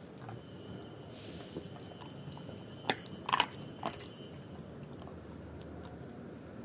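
German Shepherd biting and chewing raw chicken feet, with a few sharp bone crunches about three seconds in.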